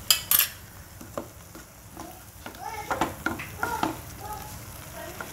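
Wooden spatula stirring and scraping thick masala paste, with a lump of palm jaggery in it, as it fries in oil in a nonstick kadai. The oil sizzles softly under it, and a few sharp scrapes come right at the start.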